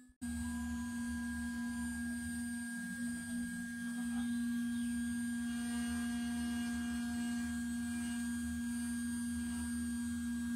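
A 2.2 kW ER20 CNC router spindle running steadily at about 15,000 rpm, a constant high hum, while a 6 mm two-flute end mill cuts a pocket in an aluminium plate. The sound drops out for an instant at the very start.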